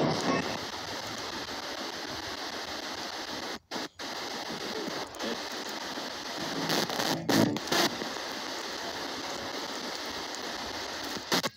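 S-Box ghost scanner (spirit box) sweeping through radio stations: a steady hiss of radio static, cut out briefly about four seconds in and again near the end, with a few short louder snatches of sound a little past the middle.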